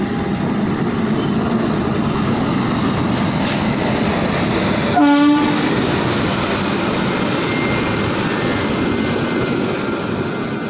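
Indian Railways express train with a locomotive and coaches running past close by: a steady, loud rumble of wheels and coaches. About halfway through, the locomotive gives one short horn blast.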